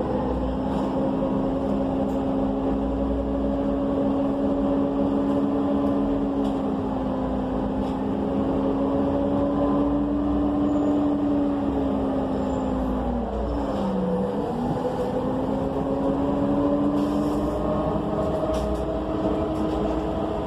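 Cummins Westport ISL G natural-gas engine of an ENC EZ Rider II transit bus running under way, heard from inside the cabin. Its pitch holds steady, drops sharply about two-thirds of the way through and climbs again, then starts to fall near the end.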